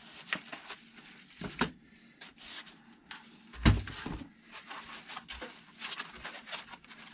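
Cardboard packaging being opened and handled: scattered rustles and knocks, with one louder thump about three and a half seconds in.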